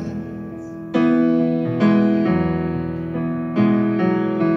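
Yamaha grand piano played live: a series of chords struck about one, two and three and a half seconds in, each left ringing.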